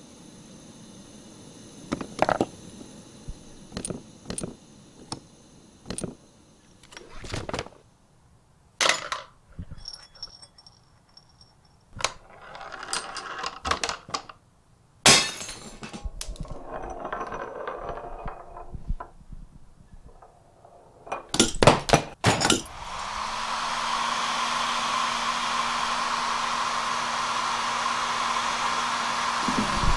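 Household objects in a chain-reaction contraption set each other off: a string of separate clicks, knocks and glassy clinks with short rolling or rattling stretches. Then a hair dryer switches on and runs steadily with a low hum.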